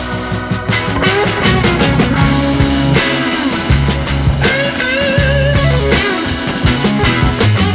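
Background rock music with a steady drum beat, bass and a lead guitar line bending and wavering in pitch.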